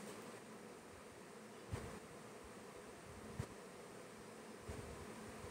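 Faint, steady sizzle of hot oil in a small pan as curry leaves, mustard seeds and a dried red chilli fry for a tempering. Three soft knocks of a spatula against the pan.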